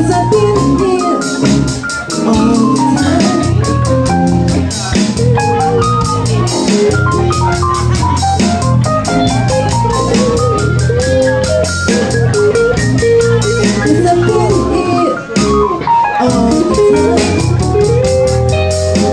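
Live band playing an R&B song, with electric bass, electric guitar, organ-like keyboard chords and a drum kit ticking a fast, even cymbal beat, while a woman sings into a microphone over it.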